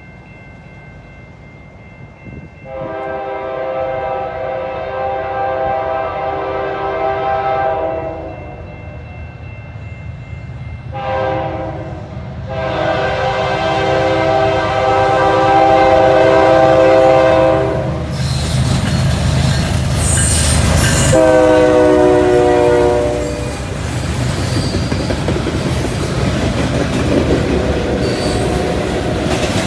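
Diesel freight locomotives sounding their air horn for a grade crossing: two long blasts with a short one between, then a last blast that drops in pitch as the locomotives pass close by. The locomotives' loud passing rumble then gives way to the steady rolling and clickety-clack of freight cars.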